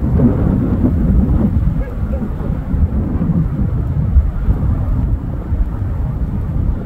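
Strong wind buffeting the microphone: a loud, gusty low rumble.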